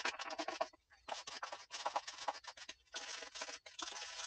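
A brush scrubbing a chainsaw bar in quick, rapid strokes, in short runs broken by brief pauses about a second in and near three seconds.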